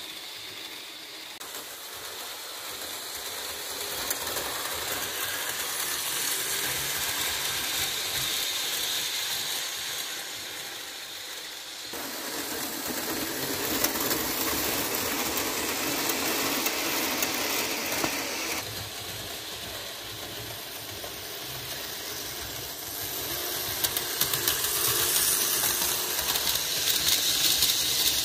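A Märklin HO model train running on metal track: the F7 diesel model's electric motor and gears whir, and the wheels make a rattling clicking on the rails. It rises and falls as the train comes close and moves away, and is loudest and most clicky near the end.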